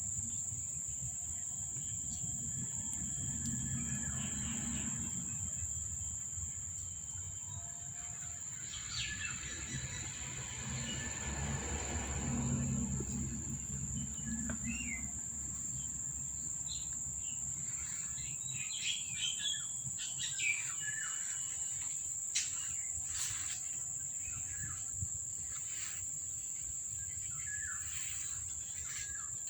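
Crickets chirring in a steady high-pitched drone, with scattered short bird chirps, mostly in the second half. A low rumble swells briefly twice, loudest about halfway through.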